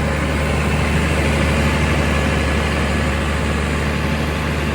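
Challenger 95E tracked tractor's diesel engine running steadily under load while pulling a plough.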